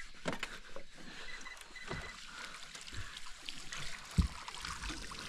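Small knocks and bumps in an open fishing boat over faint water noise, with one sharp thump about four seconds in.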